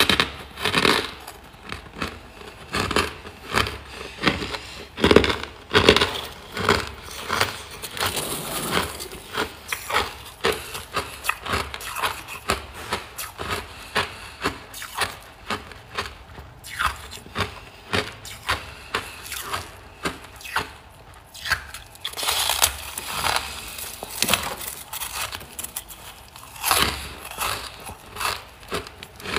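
Hard, powdery frost chunks being bitten and chewed: a dense string of loud, sharp crunches, heaviest around five seconds in and again in the last third.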